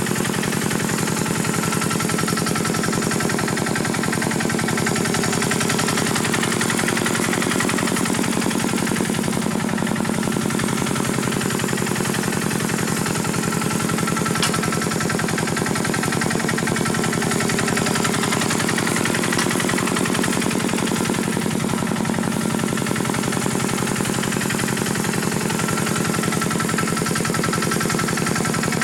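Small tractor engine running steadily with a rapid, even chugging.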